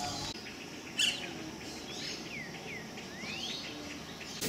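Birds calling outdoors: a sharp chirp about a second in, then a few short whistles that sweep down in pitch and one that sweeps up.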